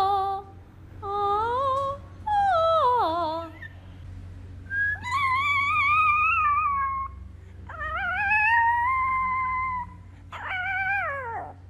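A small dog howling in a run of about six drawn-out, wavering calls: short falling ones at first, two longer ones in the middle that rise and hold, and a last one that falls away near the end. A faint steady low hum lies underneath.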